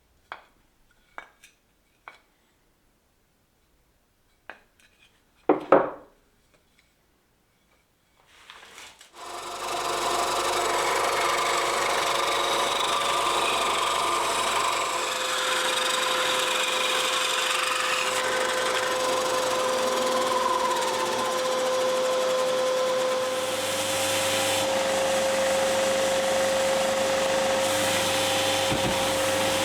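A few light clicks and knocks, then about nine seconds in an electric power tool starts up and runs steadily with a constant humming tone.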